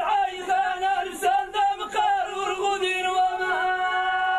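A man's voice chanting a sung verse in the Amazigh singer-poet (inchaden) style with no drum or instrument, moving between notes and then holding one long steady note near the end.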